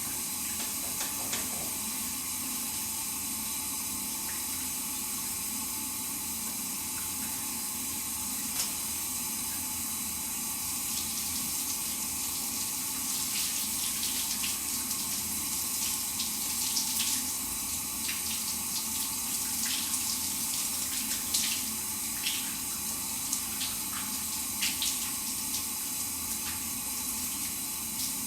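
Shower running: a steady hiss of falling water, with irregular splashes and spatters breaking into it from about a third of the way in.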